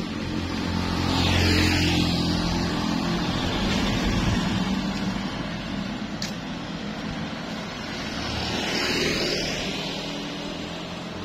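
A motor vehicle engine running steadily with road noise. The noise swells twice, about a second in and again near the end.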